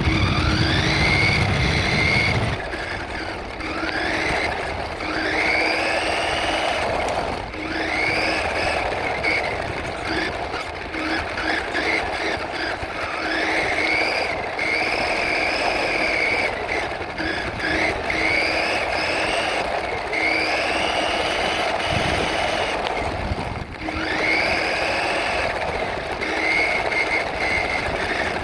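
Radio-controlled truck's motor whining, its pitch rising again and again as the throttle is applied, every two to three seconds.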